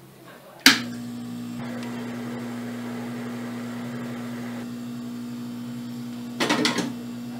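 Hot air rework station switched on with a click about a second in, its blower then running with a steady hum while a replacement SMD LED is soldered onto the TV's LED backlight strip. A few light clicks come near the end.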